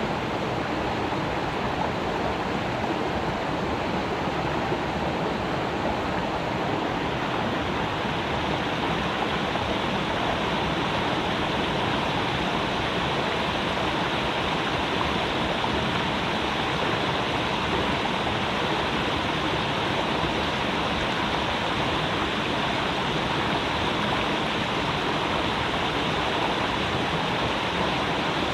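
Creek water flowing over rocks: a steady, even rush.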